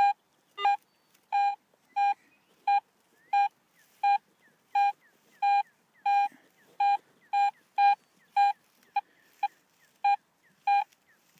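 Garrett AT metal detector sounding a long run of short, identical beeps, about one and a half a second, one for each pass of the coil over a buried target. Each beep is a clean tone with no iron grunt mixed in: the signal of a high-conductivity, non-iron target.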